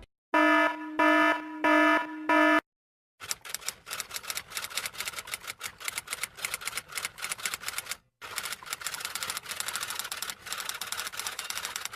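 Four short pitched electronic beeps in a row. Then a long run of rapid clattering clicks, many a second, with a brief pause about eight seconds in.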